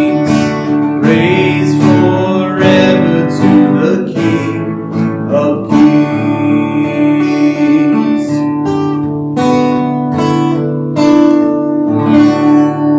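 Acoustic guitar and hollow-body electric guitar playing together, strummed chords ringing on.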